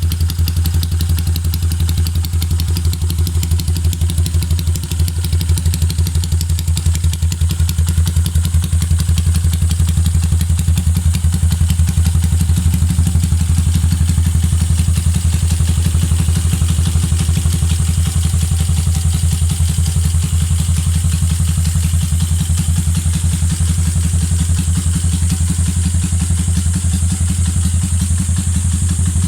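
Yamaha TMX155 motorcycle's single-cylinder four-stroke engine idling steadily, a fast even exhaust pulse with no revving.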